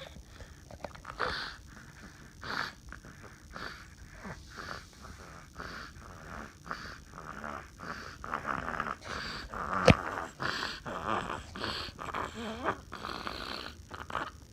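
A baby snoring: short, rasping breaths about once a second, coming closer together in the second half. A single sharp click about ten seconds in.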